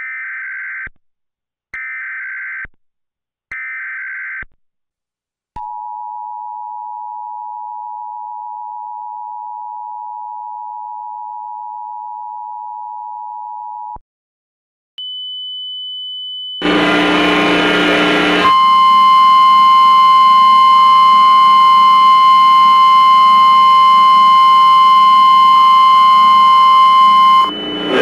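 Emergency Alert System tones: three short bursts of buzzy SAME header data, then the two-tone attention signal held steady for about eight seconds. After a short gap a pure, high-pitched tone comes in and carries on under a loud, noisy jumble of other tones, with a strong steady tone near 1 kHz, which cuts off shortly before the end.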